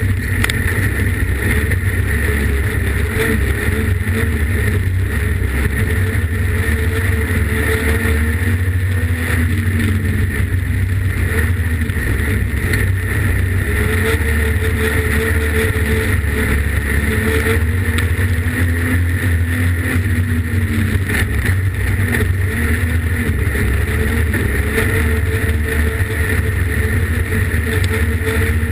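Streetstock dirt-track race car engine at racing speed, heard from inside the cockpit; its pitch rises and falls every few seconds over heavy road and wind noise.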